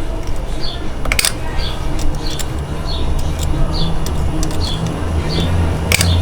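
A small bird chirps over and over, a short falling chirp about every three-quarters of a second. Two sharp metallic clicks come from pliers working a steel cotter pin, one about a second in and one near the end, over a low steady hum.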